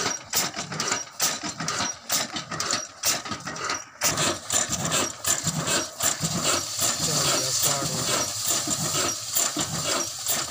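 Old single-cylinder Ruston Hornsby-type diesel engine running with a rhythmic mechanical clatter. The sound changes abruptly about four seconds in.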